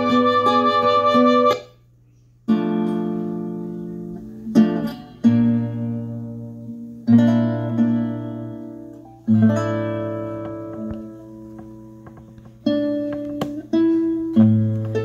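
Recorded acoustic guitar music played back over loudspeakers. One phrase cuts off about two seconds in, followed by a brief silence as the next track starts. After that, strummed chords come every couple of seconds, each ringing out and fading.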